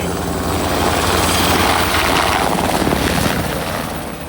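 Firefighting aircraft passing low overhead, its engine and propeller or rotor noise swelling to a peak about two seconds in and then fading away.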